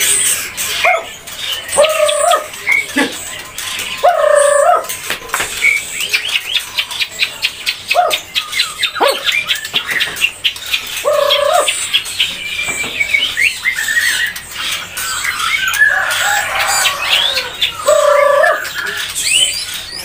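Young white-rumped shama (murai batu) singing: loud clear whistled notes every few seconds, with runs of fast high trills between them, song laced with phrases copied from a canary.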